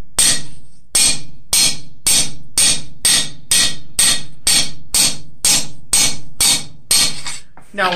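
A 3-pound cross-peen hammer strikes the edge of a cold steel cross blank on an anvil in a steady rhythm of about two blows a second. Each blow leaves a short metallic ring. This is cold texturing: the rounded peen scallops the border of the plate.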